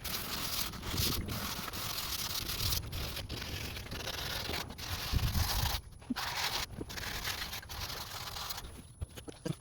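180-grit sandpaper scraping back and forth over a plastic headlight lens, a steady scratchy rasp with a few short breaks and quieter near the end, cutting away the old yellowed, cloudy clear coat.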